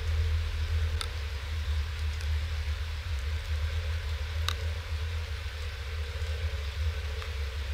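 Rain at an outdoor webcam's microphone: a steady hiss over a low, even rumble, with a few sharp ticks of drops striking the camera, about three in all.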